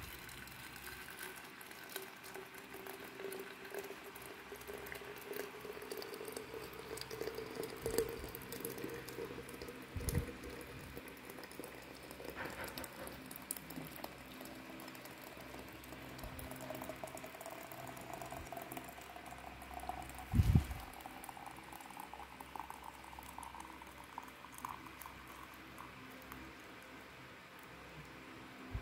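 Hot water being poured from a stainless steel kettle into a glass jug, a steady splashing stream whose pitch rises as the jug fills. Two louder knocks come about ten and twenty seconds in.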